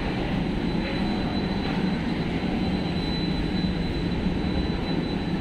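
Steady low rumble of a passenger ship's engines and machinery heard on board, with a faint steady high whine above it.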